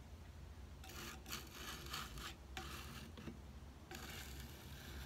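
Metal putty knife scraping across a painted wooden drawer front, spreading paint in several short strokes. The strokes come in two runs, with a pause between them, and are faint.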